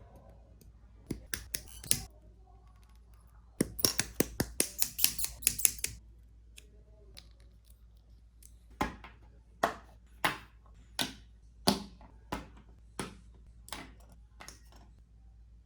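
Sharp plastic clicks and snips from a plastic model kit being assembled. Nippers cut parts from the runners and parts snap together. There is a quick flurry of clicks about four to six seconds in, then single clicks about every two-thirds of a second.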